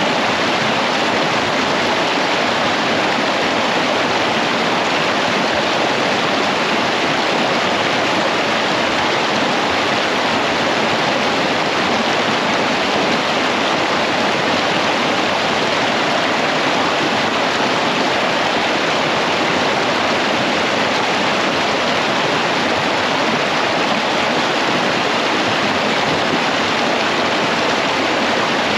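Shallow mountain creek running fast over rocks and small riffles: a steady, even rush of water.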